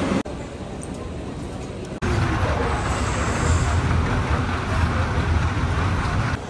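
Airport terminal background noise, mostly a steady low rumble with a faint hubbub of people. It changes level abruptly twice at cuts and is loudest, with the deepest rumble, once the shot is on the moving walkway.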